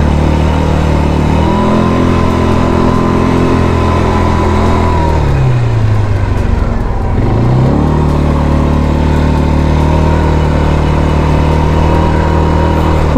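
Engine of a 176 cc GA200 ATV under way: it revs up and holds, drops back about halfway through, then picks up again and runs steadily to the end.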